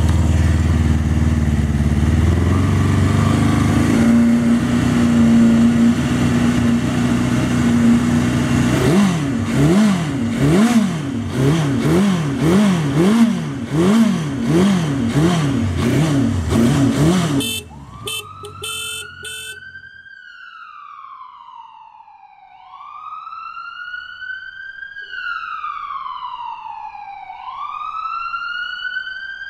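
1981 Honda CB650's inline-four engine running, then revved up and down again and again, about once a second, at a standstill. It cuts off about eighteen seconds in, and a wailing siren sound effect follows, slowly rising and falling about every two and a half seconds.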